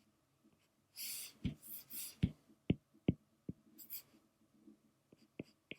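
Sketching strokes of a stylus on a tablet screen: soft scratchy strokes about a second in, then a scattering of sharp taps.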